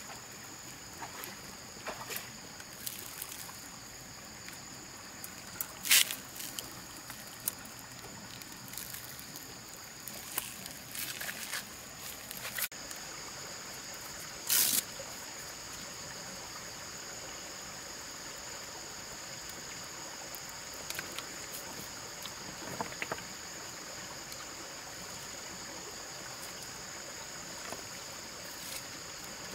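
Stream water running, with a steady high drone of insects over it. Sudden sharp sounds break in now and then: the loudest is about six seconds in, with a short burst near the middle.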